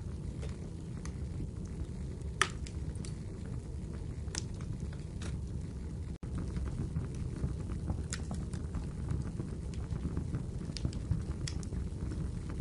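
Wood fire burning in a fireplace: a steady low rumble with scattered sharp crackles and pops, the loudest about two seconds in. The sound cuts out for an instant about six seconds in.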